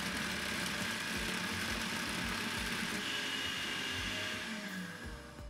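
Electric food processor running, its blade chopping pineapple chunks into a pulp. The motor runs steadily, then winds down with a falling hum about four and a half seconds in.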